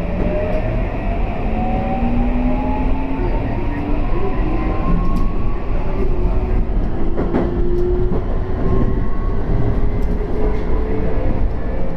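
Toei 5500-series electric train accelerating, heard from inside the car: the traction motors' whine rises steadily in pitch in several tones over the rumble of wheels on rail, with a few sharp clicks along the way.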